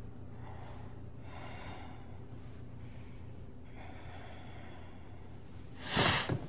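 Two slow, hissing breaths over a low steady hum, then a woman's sharp, loud startled gasp about six seconds in.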